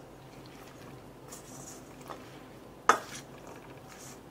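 A spoon stirring chopped salad and kidney beans in a stainless steel mixing bowl, with soft wet rustling and one sharp clink of metal on the bowl about three seconds in.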